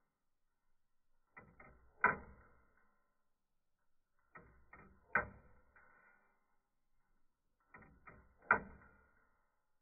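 Pin pallet escapement of a large 3D-printed Roskopf-style watch ticking in slow motion: three ticks about three seconds apart. Each tick is a quick run of light clicks ending in one louder click that rings briefly, as the steel pallet pins strike the printed escape-wheel teeth.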